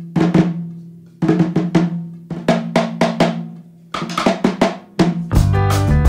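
Background music opening with short runs of snare drum hits over a held low note, then the rest of the band comes in with a bass line about five seconds in.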